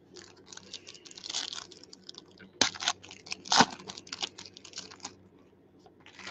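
Foil wrapper of a trading-card pack being torn open and crinkled by hand: a run of crackling rustles with two sharper rips near the middle, dying away about five seconds in.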